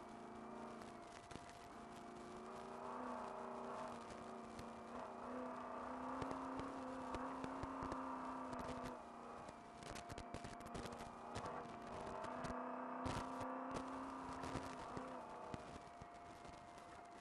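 Trophy truck engine running steadily under load at speed, heard from inside the cab, with frequent sharp knocks and rattles from the rough ground, thickest in the middle and late part. A steady whine runs underneath.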